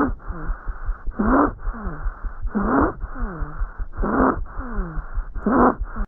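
Stridor heard through a stethoscope: a harsh, pitched breath sound that comes with each breath, five times, about every second and a half. It is the sign of a narrowed upper airway.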